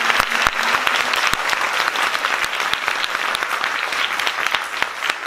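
Audience applauding steadily: a dense wash of many hands clapping, easing slightly near the end.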